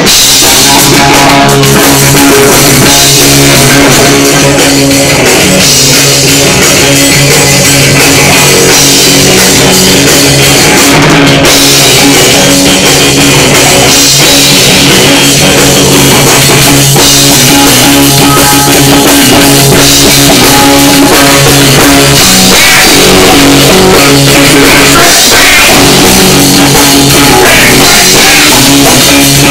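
A live rock band playing loud, with a drum kit and electric guitar driving a steady rock groove.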